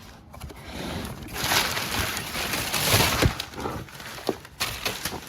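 Rustling and handling of parts packaging, a bag or box being opened, swelling for a couple of seconds with a few light knocks.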